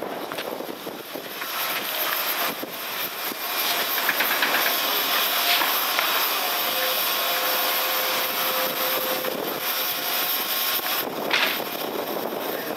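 Meitetsu electric commuter train standing at the platform with its doors open, its equipment running with a steady hiss and a brief louder hiss near the end.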